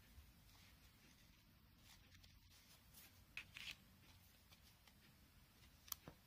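Near silence, with faint rustling of grosgrain ribbon pieces being handled: a short rustle about three and a half seconds in and a sharp click near the end.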